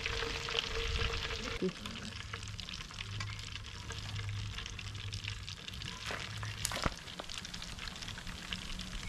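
Hot cooking oil in a pot over a wood fire, crackling and sizzling steadily with fine pops, just after a whole chicken has been lifted out of it.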